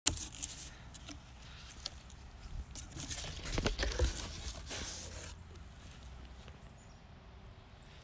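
Scratching and rustling inside a cardboard box as a pileated woodpecker shifts about in it, claws scraping on the cardboard and cloth lining. There are many quick clicks and scrapes with a few dull bumps about halfway through, then it fades to a faint hiss.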